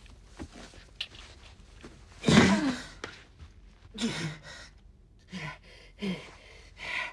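A woman being strangled: a series of short choking gasps and strained breaths, the loudest about two seconds in.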